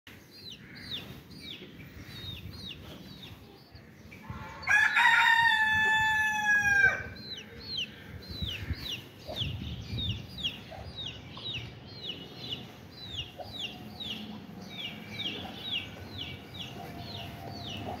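A rooster crowing once, loud and drawn out for about two seconds, starting about four and a half seconds in. Around it, a steady run of short, high, falling chirps, about two or three a second.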